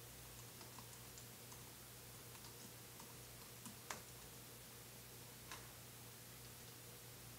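Faint computer keyboard typing: light, irregular keystrokes, with a sharper, louder click about four seconds in and another about a second and a half later, over a faint steady electrical hum.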